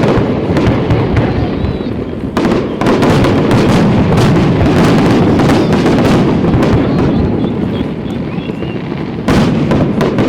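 Fireworks display: a dense, rapid barrage of shell bursts and crackling, with a louder volley starting about two and a half seconds in and another near the end.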